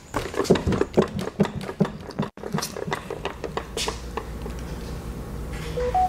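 Heavy steel, concrete-filled American Security BFX gun safe being rocked back and forth by hand: rapid rattling metal knocks and clunks, densest in the first two seconds and sparser after, the jolts meant to trip the impact sensor inside. Near the end a phone's alert tone starts.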